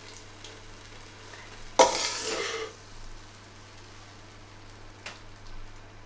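Metal spoon scraping and smoothing soft apple puree in a metal baking tin, with faint light taps. About two seconds in, the spoon strikes the tin with one sharp clink that rings briefly.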